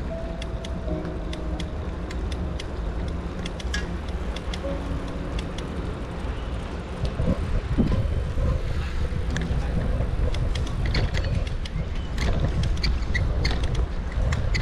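Bicycle being ridden, heard from a handlebar-mounted camera: a steady low rumble of wind and tyres on the microphone, with frequent clicks and rattles from the bike. The rattles come more often and a little louder in the second half, as the bike crosses brick paving.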